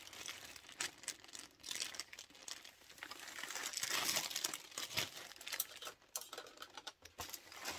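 Parcel packaging being opened by hand: irregular crinkling with scattered small clicks, loudest a little past the middle.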